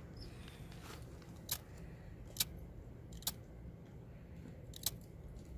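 A handheld fire starter being struck over kindling: four short, sharp scratching clicks roughly a second apart, without the tinder catching, over a low steady background rumble.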